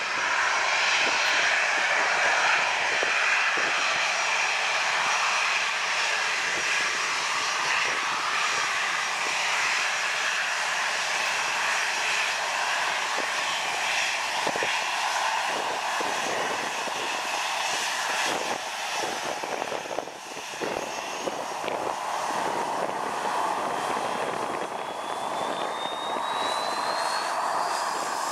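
Boeing 737 airliner's jet engines running at taxi power as it rolls past, a steady loud rushing whine. Near the end a high whine rises in pitch.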